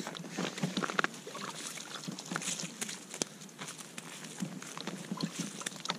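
Freshly caught lenok flopping on snowy ice, a run of irregular light slaps and taps.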